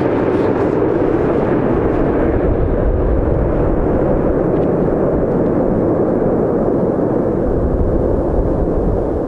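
Twin-engine widebody jetliner's engines rumbling steadily as it touches down and rolls out, mixed with gusty wind buffeting the microphone.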